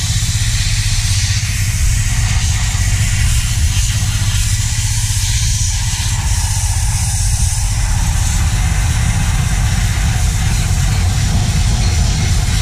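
Pressure washer running steadily: a low, even motor-and-pump drone with the continuous hiss of the water jet spraying.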